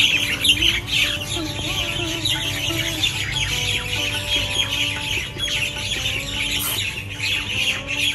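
Farmyard ambience of hens clucking and small birds chirping, steady and busy throughout.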